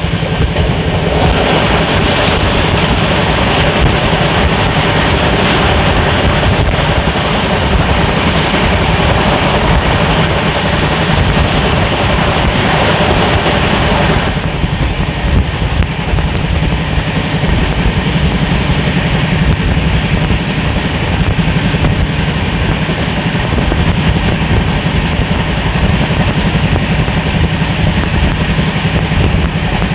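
Express passenger train running at speed, heard from an open coach doorway: a loud steady roar of wheels on rail and rushing air, with a low steady hum underneath. The higher hiss eases off about halfway through.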